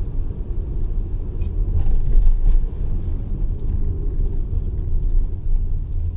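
Car driving on a lane, heard from inside the cabin: a steady low rumble of engine and tyres, with a few faint ticks.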